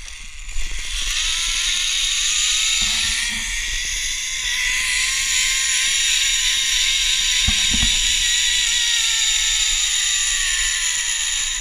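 Zipline trolley pulleys running fast along a steel cable: a loud whir with a hiss, starting about half a second in, rising in pitch over the first few seconds and then slowly falling as the trolley slows toward the landing platform.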